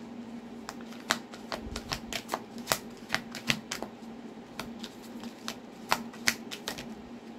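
A deck of cards being shuffled by hand: an irregular run of sharp card clicks and snaps, several a second, over a faint steady hum.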